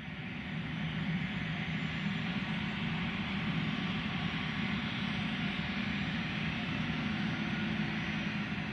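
Dassault Falcon 8X's three Pratt & Whitney Canada PW307D turbofans running steadily at low power as the jet taxis, a low hum under an even jet noise. The sound fades in over about the first second.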